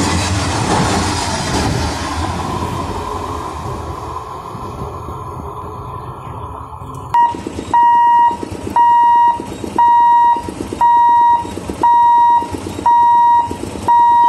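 Passenger coaches rolling past on the track, their rumble fading away over several seconds. Then, after a sudden cut, a level-crossing warning hooter beeps at one steady pitch, about once a second.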